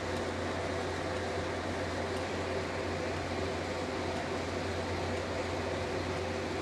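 A steady low hum with faint background noise, like a fan or air handler running, holding level without change.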